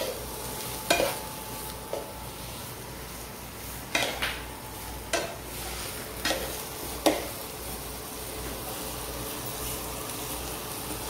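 Sliced onions sizzling in hot oil in a nonstick frying pan as they are stirred with a spatula. Several short knocks and scrapes of the spatula against the pan come through the first seven seconds or so.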